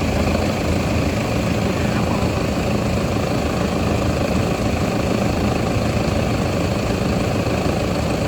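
Car engine idling steadily with the air-conditioning system running during a refrigerant recharge. The engine and under-bonnet running noise is constant and unchanging.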